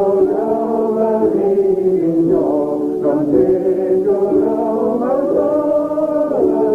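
A voice singing a Gaelic song, holding long notes and moving between them in slow phrases.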